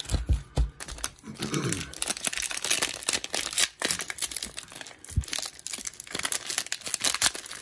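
Plastic cellophane wrapper of a trading-card cello pack crinkling and tearing as it is pulled open by hand, a dense run of irregular crackles.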